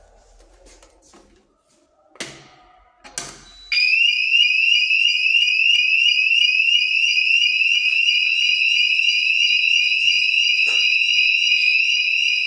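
Two sharp knocks, then a bit over a third of the way in a fire alarm sounder of an addressable fire alarm system starts up loud: a high, fast-repeating rising warble, several sweeps a second, over a steady high tone, sounding on without a break.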